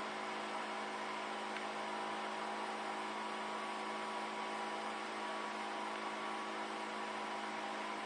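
Ice-bucket air cooler's small 12-volt DC fan running, a steady hum with air rushing out of the outlet pipes.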